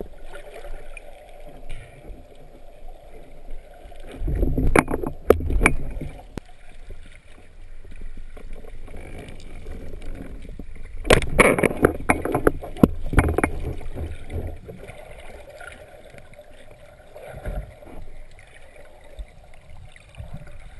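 Water splashing and sloshing in shallows, in two rough bouts of short splashes, about four seconds in and again around eleven seconds in.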